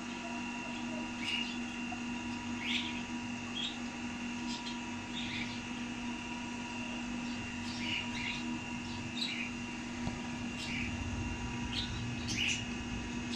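Birds chirping in short calls about every second, over a steady hum.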